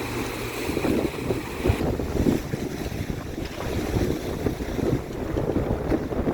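Strong wind buffeting the phone's microphone in irregular gusts over rough, choppy storm waves.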